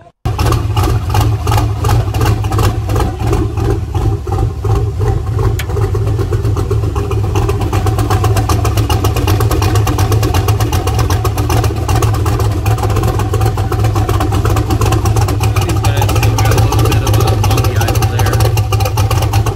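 Jeep CJ engine running loudly at idle through a side-exit exhaust, with a rapid, choppy, uneven pulse set off by a "chop button" that makes the idle lope.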